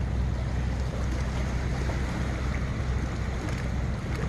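Steady outdoor ambience by the sea: an even low rumble with a hiss over it, unbroken throughout.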